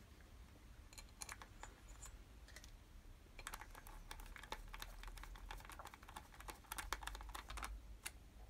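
Screwdriver driving small screws into the plastic housing of a Citroën Xsara cabin blower fan, a faint run of light, quick clicks and ticks, sparse at first and denser from about three seconds in.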